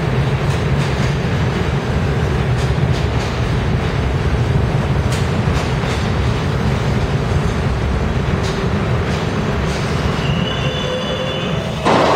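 NYC Subway R32 cars running through a station: a steady low rumble of wheels with repeated clicks over the rail joints. A faint wheel squeal comes in near the end. Just before the end the sound cuts abruptly to a louder hiss.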